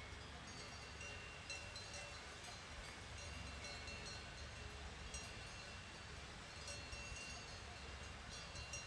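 Bells on grazing livestock clinking faintly and irregularly, with a low wind rumble on the microphone.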